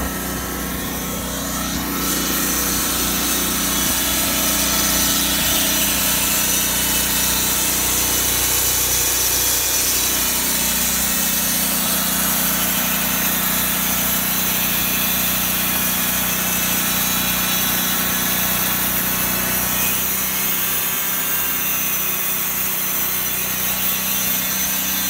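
Wood-Mizer LT40 portable band sawmill running steadily, its engine under load as the band blade saws through a squared log. It gets louder about two seconds in.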